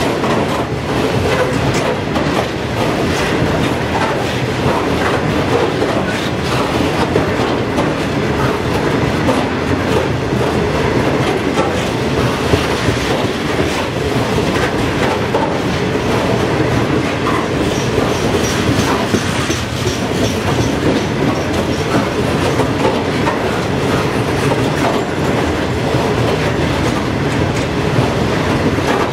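Freight train's hopper wagons rolling past close by, their wheels rumbling and clicking on the rails in a steady clickety-clack. A faint high wheel squeal comes in for a few seconds around the middle.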